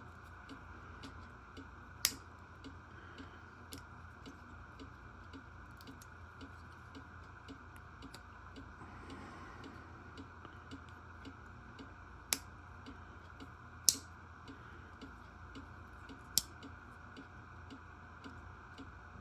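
A few sharp, separate metal clicks of a folding pocketknife's blade snapping open and shut, four clear clicks spaced out over the stretch, with a steady low room hum underneath.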